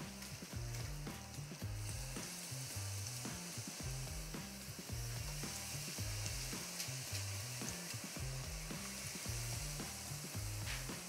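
Potato balls in cornmeal batter frying in hot oil in a pan: a steady sizzle that grows fuller about two seconds in as more balls go into the oil. Low notes of background music run underneath.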